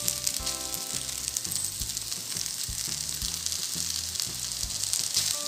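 Shredded-chicken filling sizzling steadily in a frying pan, with soft background music.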